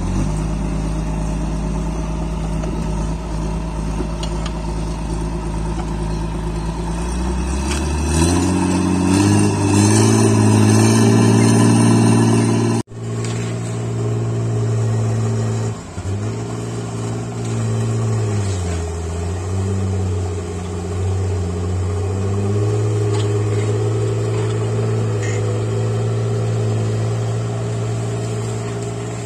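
Caterpillar D4C LGP crawler dozer's diesel engine running, its revs rising about eight seconds in and holding high. After a break near the middle, the engine speed dips and recovers a few times as the dozer works the soil pile.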